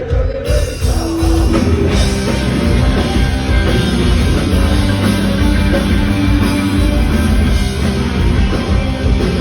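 A punk rock band playing live at full volume, with drum kit, electric guitar and bass. The band comes in hard about half a second in, just after a held voice dies away.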